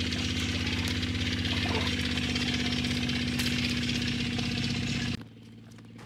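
An engine idling steadily with an even, unchanging hum, cutting off abruptly about five seconds in.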